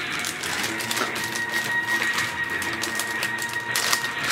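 Clear plastic packaging bag being handled and crinkled, a dense, irregular run of crackles.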